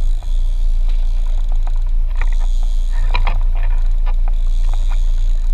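Steady low rumble aboard a small fishing boat, with scattered light clicks and rattles from the fishing gear.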